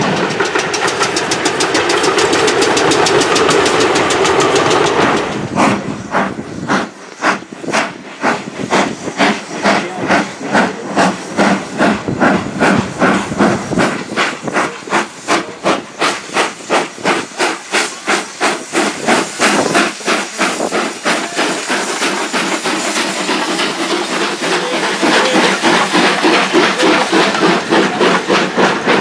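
Double-headed steam train working hard, led by Ivatt 2-6-2T tank engine 41241: the two locomotives' exhaust chuffs come in a steady rhythm of about two a second, with steam hissing. The beats get thicker and louder as the engines come close, and the carriages roll past near the end. For the first five seconds there is the steady rush of a train running past, with no beats.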